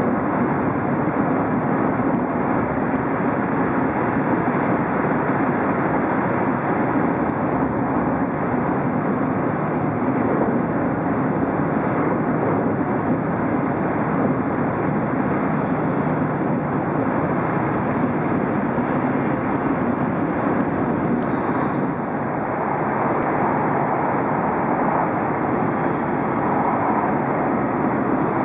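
Steady interior running noise of an E5 series Shinkansen at high speed, heard from the passenger cabin: an even, unbroken rush with no clear rhythm.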